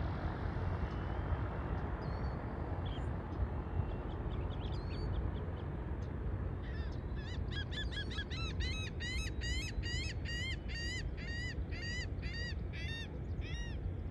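A large flock of birds calling: a dense chorus of many short calls, each rising and falling, from about seven seconds in until shortly before the end, over a steady low rumble.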